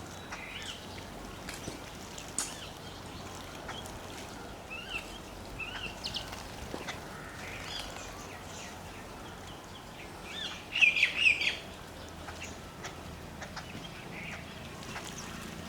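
Sparrows chirping in short scattered calls, with a louder flurry of chirps about eleven seconds in.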